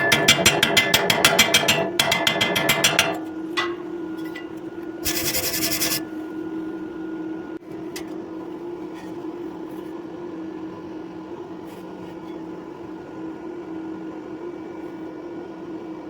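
Fast, even rasping strokes for about three seconds, then a short hiss around five seconds in, over a steady hum.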